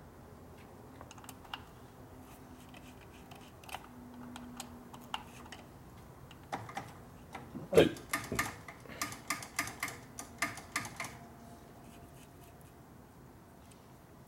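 Small, irregular metal clicks and taps from hand tools and parts being handled on a motorcycle's open primary drive, with one louder knock about eight seconds in followed by a quick run of clicks.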